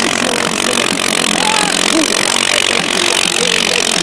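ATV (quad bike) engine running hard under load as it churns away through deep snow, its wheels throwing up snow.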